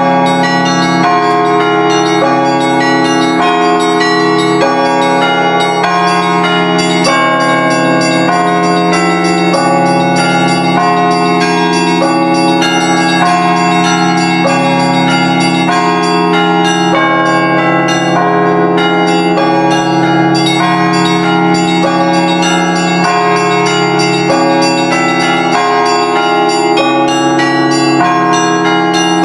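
Russian Orthodox church bells being rung in a continuous peal: many quick strikes of the smaller bells ring out over the steady, sustained hum of the larger bells.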